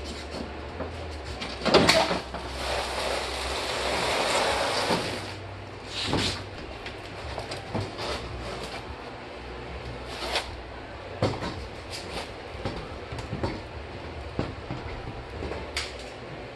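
A Chevy Volt's plastic front bumper cover being pulled off the car: a loud sharp pop about two seconds in as a retaining clip lets go, then a few seconds of plastic scraping and rubbing, followed by scattered knocks and clicks as the cover is worked free.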